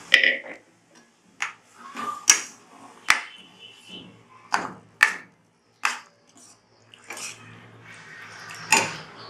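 A spoon knocking and scraping against a cooking pan while mixing potatoes and sprouted matki into a thick masala, giving about a dozen sharp clinks at irregular intervals, some with a short ring.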